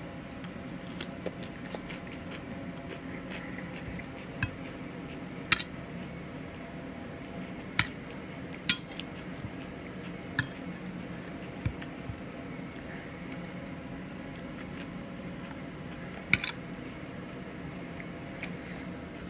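Metal fork clinking and scraping against a plate as salad is picked up, with about seven sharp clinks spread through, and chewing in between.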